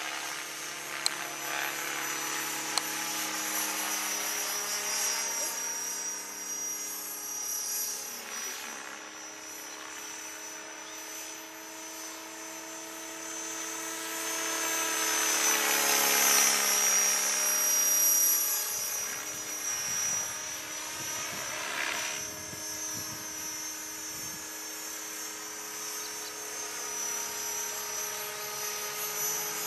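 Align T-Rex 600 radio-controlled helicopter in flight: a steady high whine and rotor buzz. It grows louder about halfway through as it passes closest, the pitch bending slightly, then eases off. Two short clicks sound in the first three seconds.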